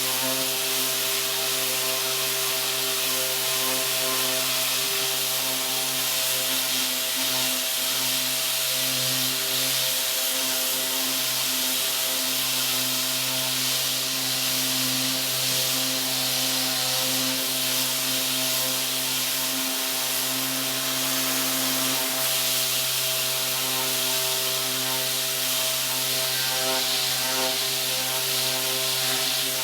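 Electric sander running steadily with 60-grit paper against a wooden pinball playfield, stripping the paint: a constant motor hum under a rough sanding hiss.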